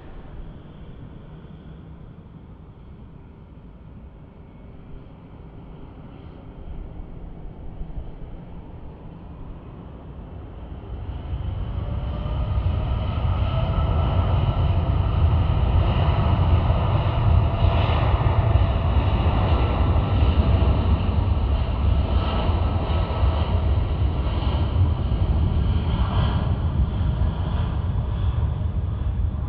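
Boeing 787 Dreamliner's twin jet engines on a takeoff roll. A quieter jet rumble grows loud about eleven seconds in and stays loud, a deep rumble with a steady engine whine over it.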